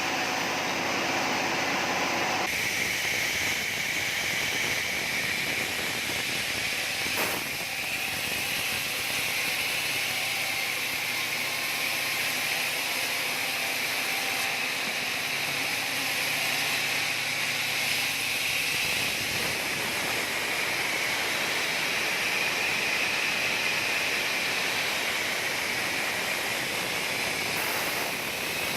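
Sawmill saw running steadily with a continuous high whine and hiss, the sound changing abruptly about two seconds in.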